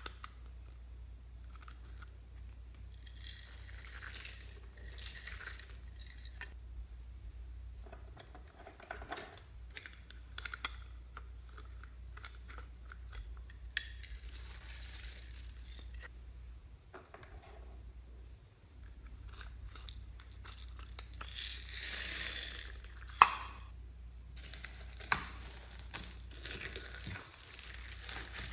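Slime handled by hand, crackling and crinkling in irregular bursts. The loudest stretch comes about three quarters through, followed by two sharp clicks.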